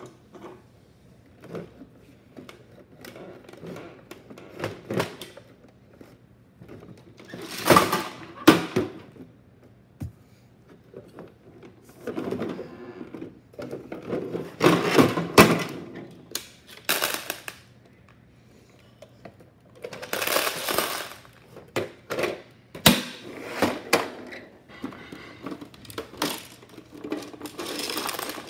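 Small plastic toy pieces clattering and rattling out of a tipped-up Bruder toy garbage truck's body into a plastic tub, in several separate bursts with clicks and knocks of the toy being handled between them.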